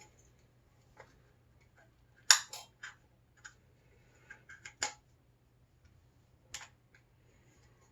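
Scattered small clicks and taps from handling a Lubitel TLR camera and its film roll while the film is being threaded: about a dozen sharp ticks, the loudest about two seconds in and a quick cluster around the five-second mark, over a faint steady low hum.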